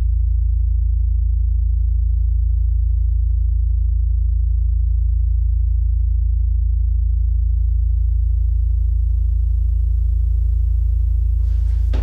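Low, steady synthesizer drone of a film score, with a faint slow throb about every two and a half seconds and a faint hiss creeping in during the second half.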